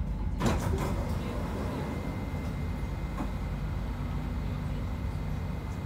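Dubai Metro train running between stations, heard from inside the car: a steady low rumble with a thin steady high whine, and a brief clatter about half a second in.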